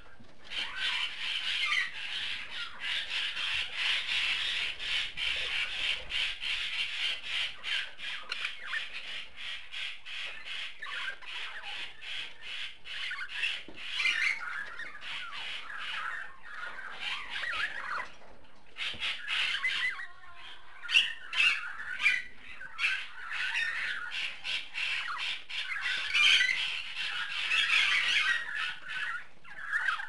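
Budgerigar chattering: a steady stream of fast, scratchy twittering and clicks, with a few louder, sharper chirps about two-thirds of the way through.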